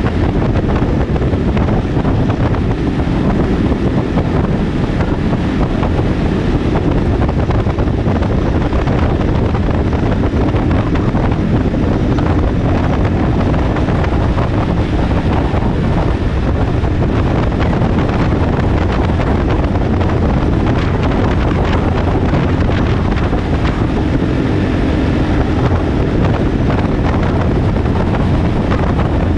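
Motorcycle riding: heavy wind noise on the microphone over the steady drone of the engine.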